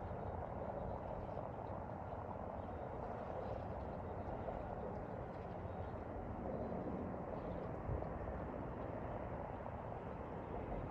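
Steady distant drone of a high-speed passenger catamaran running toward the shore, with a couple of brief low bumps.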